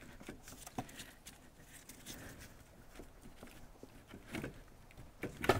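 Faint handling noise as gloved hands work around a car alternator in a cramped engine bay: scattered light clicks and rustling, with a few sharper knocks near the end.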